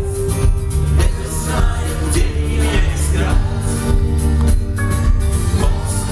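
Rock band playing live through a concert PA: drums keeping a steady beat under bass and guitars.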